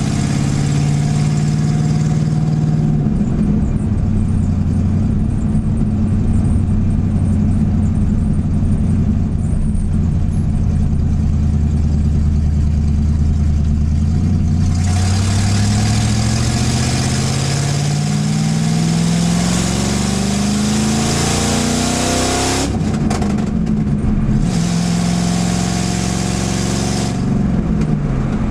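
Ford 302 V8 with straight headers, heard from inside the cabin: running steadily, then pulling up in pitch for several seconds before dropping sharply at an upshift about 23 seconds in, and settling again. Wind and road noise grow as the car gathers speed.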